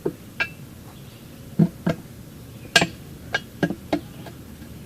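Steel pry bars clinking and knocking against a steel wheel rim while a tire bead is levered onto it: about eight sharp metallic knocks, the loudest near three seconds in.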